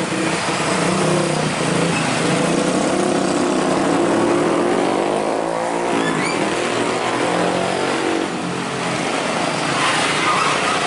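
Diesel engine of a UD Trucks tractor unit pulling a fully loaded semi-trailer at crawling speed, running steadily under load, with its note shifting in pitch about halfway through.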